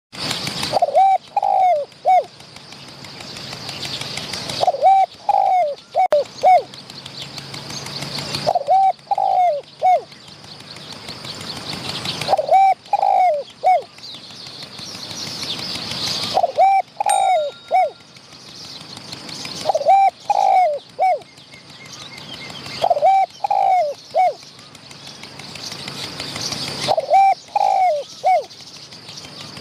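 Spotted dove cooing: short phrases of four or five notes, repeated about every four seconds. Faint chirps of smaller birds and a rising hiss fill the gaps between phrases.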